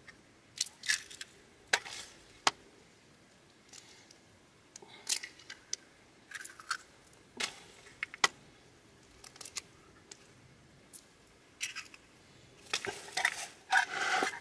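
Eggs being cracked on the rim of a plastic bucket and dropped into dry bait mix: scattered sharp taps and shell cracks, with denser rustling and scraping near the end.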